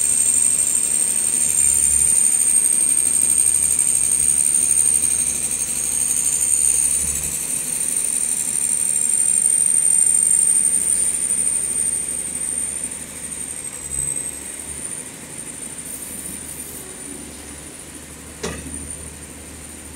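Compressed-air blow gun hissing with a steady high whistle as it blows dust off a generator's engine and radiator, strong for the first twelve seconds or so, then fainter. A single sharp knock near the end.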